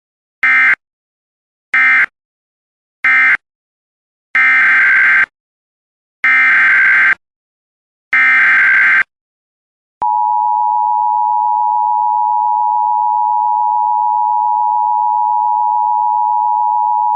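Emergency Alert System tones: three short bursts of SAME digital data, the end-of-message code closing one alert, then three longer SAME header bursts opening the next alert. About ten seconds in, the steady two-tone EAS attention signal begins and holds.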